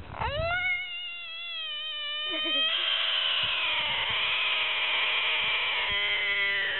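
An animal's single long, drawn-out call, rising at the start and then held, getting louder about three seconds in and breaking into a rapid pulsing near the end.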